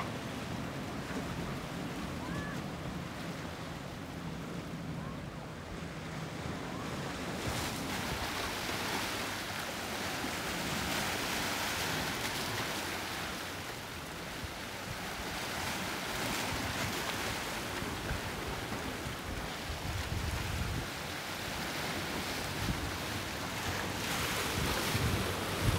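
Wind buffeting the microphone over choppy, splashing sea water. A low boat-engine hum runs under it for the first several seconds.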